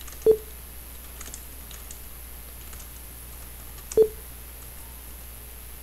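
Computer keyboard typing: faint scattered keystrokes, with two louder single clicks, one near the start and one about four seconds in.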